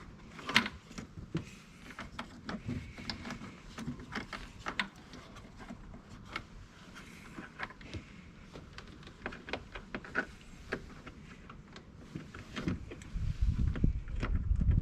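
Scattered light clicks, taps and clinks of hand tools and parts being handled while putting the blower motor assembly back together. A low rumbling noise comes in near the end.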